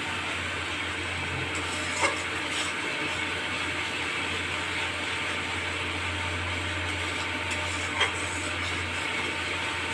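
Spice paste sizzling in an aluminium kadai as it is fried down and stirred with a metal spatula, with two sharp clacks of the spatula against the pan, about two seconds in and again about eight seconds in. A steady low hum runs underneath.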